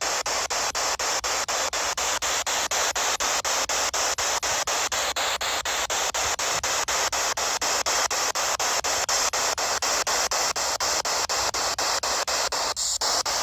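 PSB7 spirit box sweeping through radio stations: steady loud static hiss chopped by short regular gaps about five or six times a second, with a brief break near the end.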